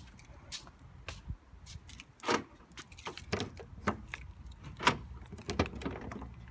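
Irregular light clicks, taps and clinks of handling in a Jeep's cabin and cargo area, with a few sharper knocks through the middle.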